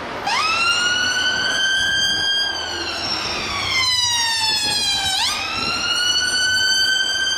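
London Ambulance Service ambulance's electronic siren sounding a slow wail. It sweeps up quickly, holds, and slides slowly down over a few seconds, then sweeps up again about five seconds in.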